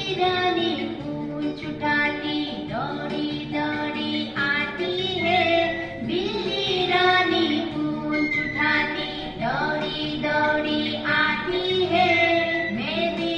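A song with a high singing voice in phrases of a second or two, gliding between notes, over instrumental backing music.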